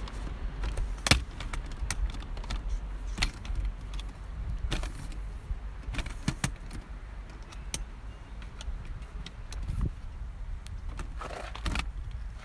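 Walking over grass while carrying a phone and gear: irregular small clicks, jingles and rattles, like keys or loose gear, over a steady low rumble.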